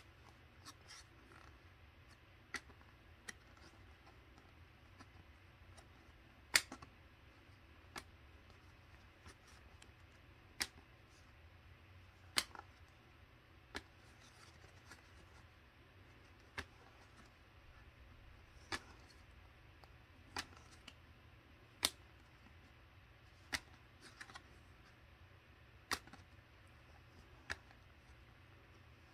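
Cardboard trading cards clicking as they are flipped one at a time from a handheld stack, a sharp click every second or two, irregularly spaced, over a faint low hum.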